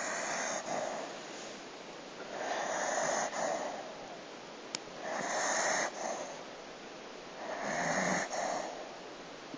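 Dog snoring: four snores, evenly spaced about two and a half seconds apart, with a brief click near the middle.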